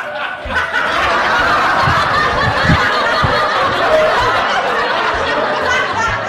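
Laughter from several people at once, running continuously.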